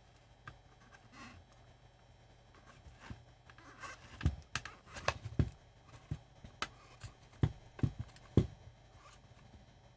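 Hard plastic clicks and knocks as a transistor radio's front cover is handled and fitted back onto its case: about a dozen sharp, irregular knocks over the second half.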